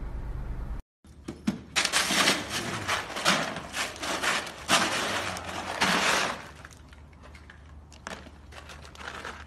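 Ice cubes clattering and crunching in a plastic kiddie pool as a husky paws and tramps through them. The clatter is loud for several seconds, then settles into quieter scattered clinks as the dog lies down in the ice.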